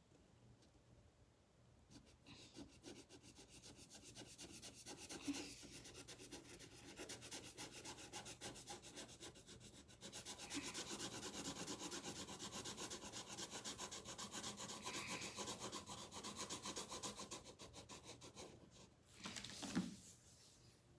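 Felt-tip marker scribbling rapidly back and forth on paper while colouring in a picture. The strokes start about two seconds in and grow louder and denser around the middle.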